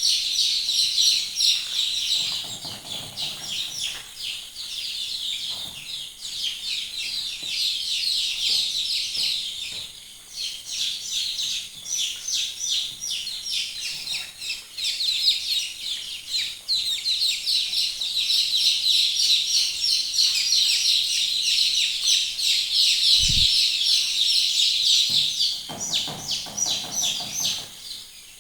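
A flock of chicks peeping continuously: a dense chorus of many overlapping high cheeps. A brief low bump comes late on.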